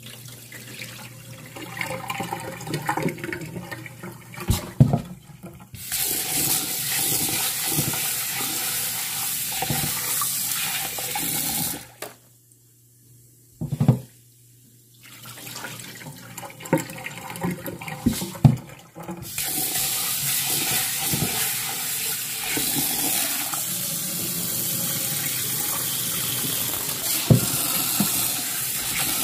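Kitchen tap running into a bowl of green mung beans in a stainless steel sink, with water sloshing as the beans are stirred and the rinse water poured off. The tap runs steadily twice, stopping for a few seconds near the middle, where there are splashes and a single knock.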